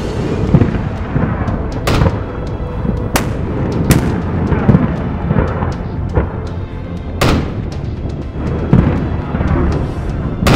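Cannons of a replica wooden sailing warship firing, about five separate booms spaced irregularly a second or more apart, each trailing off in a rumble, over background music.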